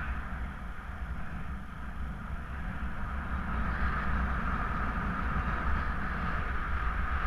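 Airflow buffeting the microphone of a camera mounted on a paraglider in flight: a steady low rumble with a hiss, growing a little louder partway through.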